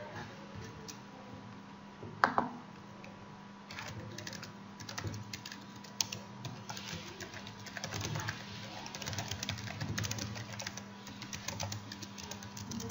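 Typing on a computer keyboard: a quick, uneven run of key clicks that starts about four seconds in and goes on until near the end, with one brief louder sound a little earlier, about two seconds in.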